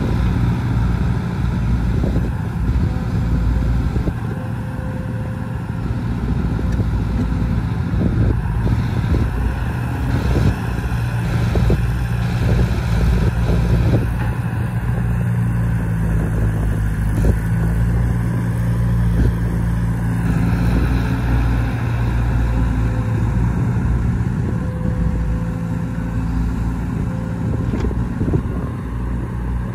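Crawler excavator's diesel engine running steadily under hydraulic load as it digs and loads soil, its note shifting in pitch now and then. Scattered knocks of soil and the bucket dropping into a steel dump-truck bed.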